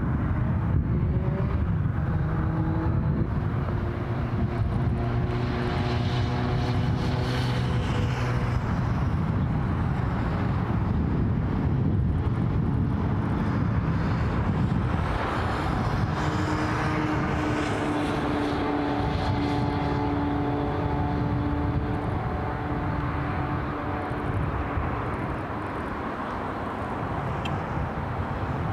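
ICE high-speed electric train running on the track: a steady rush of rolling and air noise with several humming tones that shift slightly in pitch.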